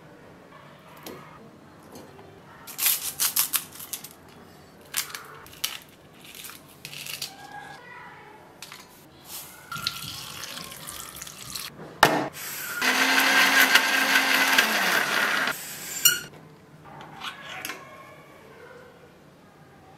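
Water poured into a steel mixer-grinder jar, among the clicks and knocks of kitchen handling. Then a sharp click and an Indian mixer grinder running for about three seconds, the loudest sound, grinding the roasted chutney ingredients, before it cuts off suddenly.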